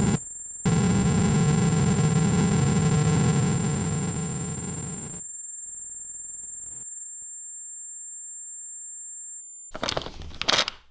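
Loud rumbling noise drone with steady high-pitched tones, cut off briefly just after the start and fading away about five seconds in; faint steady tones remain, then a short loud burst of noise near the end stops abruptly.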